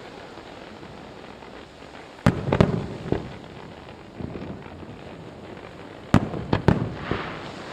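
Aerial firework shells bursting: three sharp booms about two seconds in, then four more about six seconds in, each trailing off in an echo.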